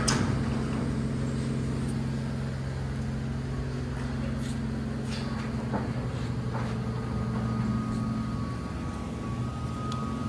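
The 3.5-litre V6 of a 2019 Ford Explorer idling steadily, with a few light clicks.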